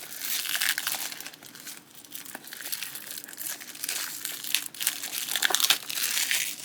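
Packaging crinkling and rustling in irregular bursts as it is handled and opened by hand.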